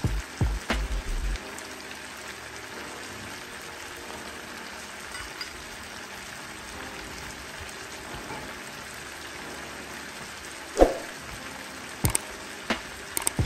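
Long beans and pork frying in a wok, a steady soft sizzle. A few short knocks or clicks break in, the loudest one about three-quarters of the way through.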